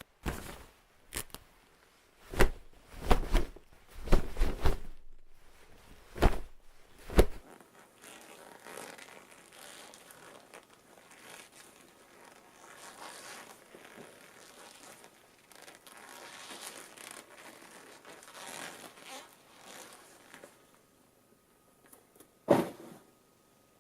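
Cloth being handled and moved: a quick series of sharp, sudden fabric swishes and snaps over the first seven seconds, then a long stretch of softer, continuous rustling, and one last sharp snap near the end.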